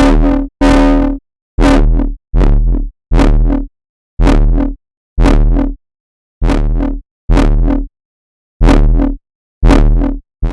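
Synthesized bass stabs with a white-noise layer: about a dozen short, loud hits, each with a deep sub-bass and a hissy top, cut off sharply and separated by brief silences in an uneven rhythm.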